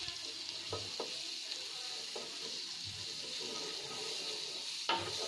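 Butter sizzling as it melts on a hot flat griddle pan (tawa): a steady frying hiss, with a few light scrapes of a wooden spatula spreading it over the pan.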